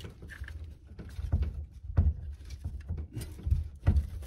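A few dull knocks and clicks of hands working at a car's trunk-lid latch from inside the trunk, trying to shift a stuck latch.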